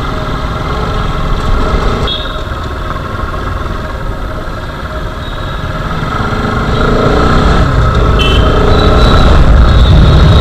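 Motorcycle engine running as the bike is ridden, heard from a camera mounted on the bike, with the low rumble growing louder over the last few seconds.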